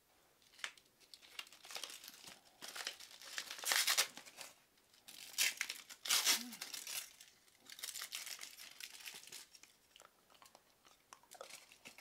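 Intermittent rustling and crinkling handling noise in short, irregular bursts, loudest about four and six seconds in.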